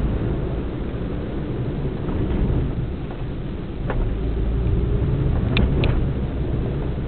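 Steady low rumble of a vehicle driving along a city road, engine and road noise together. A sharp tick comes about four seconds in, and two short high-pitched chirps follow in quick succession about a second and a half later.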